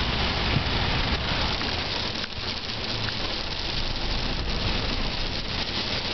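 Hard rain pelting steadily on a vehicle's roof and windows, heard from inside the vehicle, with a low rumble underneath.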